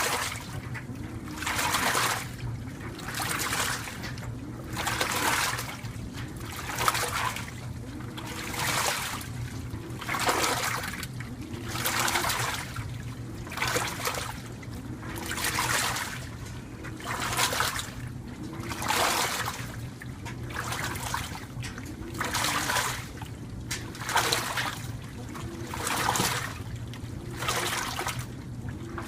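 2012 LG top-load washing machine agitating a wash load: water swishes and splashes in an even rhythm, one surge about every two seconds as the wash plate turns back and forth, with a faint motor whir rising and falling on each stroke. A running clothes dryer adds a steady low hum.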